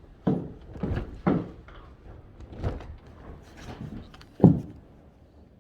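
Storm door and its makeshift latch being worked by hand: a run of knocks and clunks, the sharpest about four and a half seconds in.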